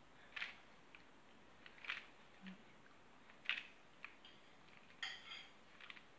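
Plastic clacks of a Square-1 puzzle's layers being turned and sliced by hand, a short click every second or two with a quick cluster about five seconds in.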